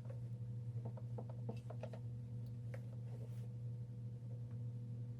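Light, scattered clicks and taps of small parts being handled, over a faint steady low hum.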